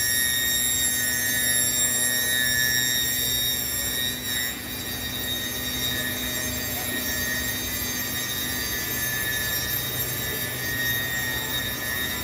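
Biesse Rover A CNC machining centre running: a steady, high-pitched whine made of several tones over a low hum.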